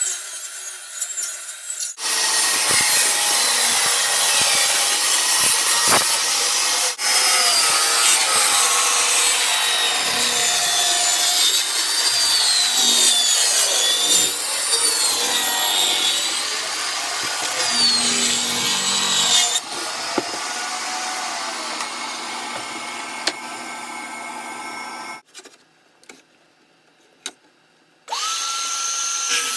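Table saw running, then cutting a wooden board lengthwise with its blade tilted to 45 degrees for a French cleat, a long continuous cut with a wavering whine, then running on freely without load. After a brief near-silent pause with a few clicks, a Makita sliding compound miter saw's motor starts near the end with a steady whine.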